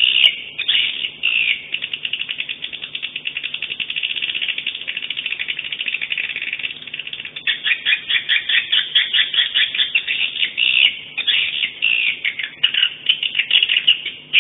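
Edible-nest swiftlet calls, a swiftlet lure recording. It is a dense, high twittering of rapid chirps that settles into an even buzzy trill of clicks in the first half and breaks into louder, more varied chirping in the second half.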